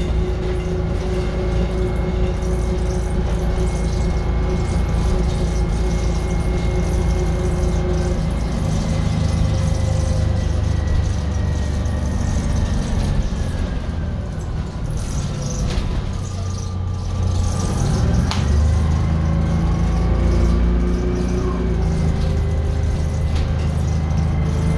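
Detroit Diesel 6V71N two-stroke V6 diesel of a 1982 GM New Look transit bus, heard from inside the cabin while driving. It runs steadily, its note falls away about halfway through, then rises again as the bus picks up speed.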